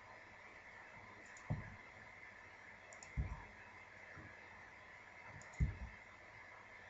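Three soft clicks from a computer mouse and keyboard, spaced about two seconds apart, over a faint steady hiss.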